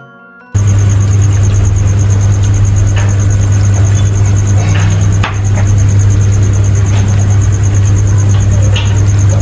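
About half a second in, a loud, steady, low mechanical drone begins, like a running engine, with an insect trilling in rapid, even pulses high above it. A few soft clicks come from fingers working food on a plate.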